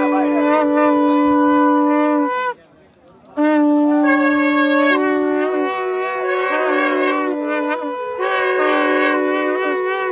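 Several horns blown together in long, overlapping held notes at different pitches, with a short break about two and a half seconds in.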